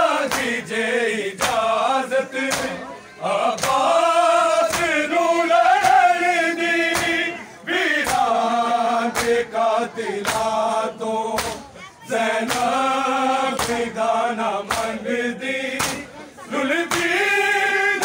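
A crowd of men chanting a noha, a Shia lament, together in sung phrases of a few seconds each. Sharp strikes sound at a steady beat of about one and a half a second: hands beating on bare chests in matam.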